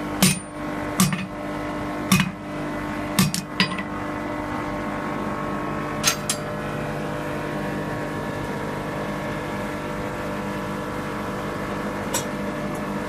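Blacksmith's hand hammer striking red-hot steel on an anvil, five ringing blows in the first four seconds, then two quick metal clinks about six seconds in as the piece goes back into the coal forge, and one more near the end. A steady mechanical hum runs underneath.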